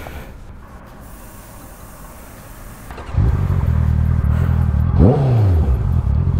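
After about three seconds of low background noise, a Honda CBR650's inline-four engine comes in, running at idle. About five seconds in there is one quick throttle blip that rises and falls back.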